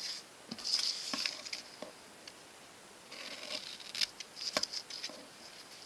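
Scissors cutting through folded paper: crisp snipping with sharp clicks of the blades, in two short spells, about half a second in and again from about three seconds in.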